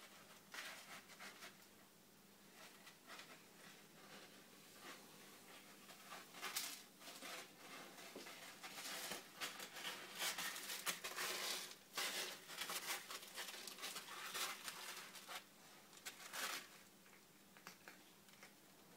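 Young kittens scuffling and wrestling in a fabric-lined cat bed: soft, irregular rustling of cloth and light pattering taps, busiest in the middle and quieter near the end.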